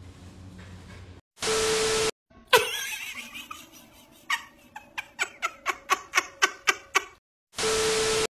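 Two short bursts of TV static with a steady beep, a glitch transition effect. Between them comes one loud thud, then about a dozen sharp knocks that come faster and faster.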